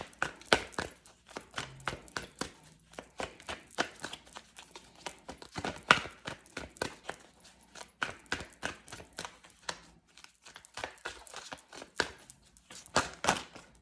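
Tarot cards being shuffled and handled by hand: a run of quick, irregular card snaps and taps, several a second, thinning out briefly partway through.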